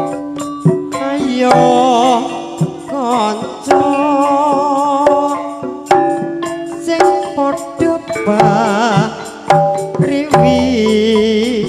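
Live campursari music: kendang hand-drum strokes drive the rhythm under sustained melodic tones, with a wavering vibrato melody line coming and going.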